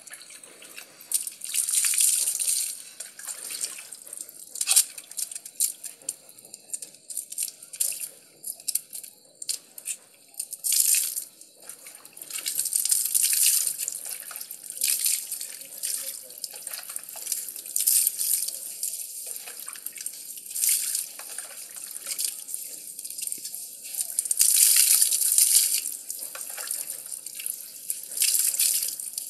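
Water poured and splashed over a dog being bathed from a basin, in irregular splashy bursts of a second or two.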